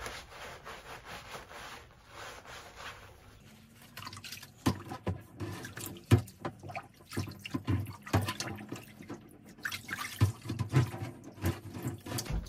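A loofah scrubbing the padded lining of a fencing mask, then, from about three and a half seconds in, water splashing and sloshing irregularly as hands squeeze and move the mask in a sink of water to rinse it.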